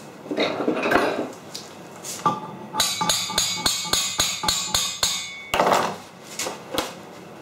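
A hammer striking steel about ten times in a quick, even run, roughly four blows a second, each with a short metallic ring. Clattering of metal parts on the workbench comes before and after the blows.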